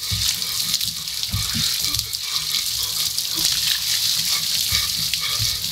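Steady rush of water pouring down onto a person and splattering on a wooden deck.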